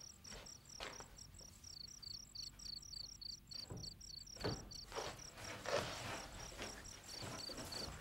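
Crickets chirping in a steady high pulse, about five chirps a second, pausing for a couple of seconds past the middle and then starting again. Faint rustles of cloth and rope being handled come and go under them.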